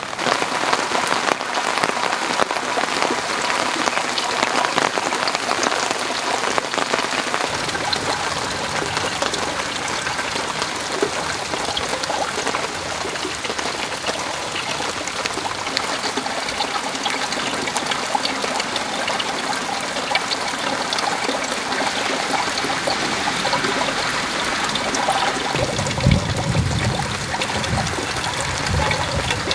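Summer rain falling steadily in a garden: a dense, even hiss of countless drops striking surfaces. Near the end, a few low, heavier sounds join in.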